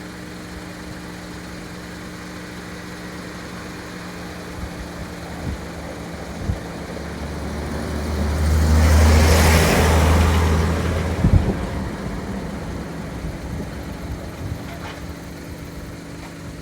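A motor vehicle passes close by: it grows louder over a few seconds with a deep rumble and tyre hiss, then fades, with a sharp knock as it goes. A steady engine hum runs underneath.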